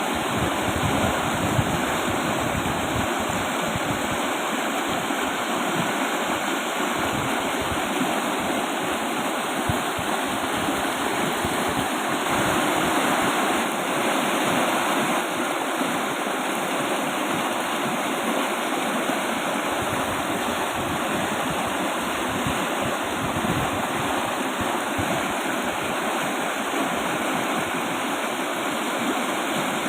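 Fast-flowing river rushing steadily, a dense, even wash of water noise that swells slightly about halfway through.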